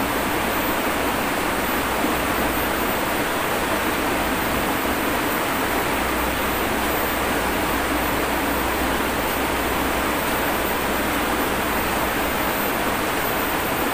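Shallow river rapids running over rocks: a steady, even rush of water.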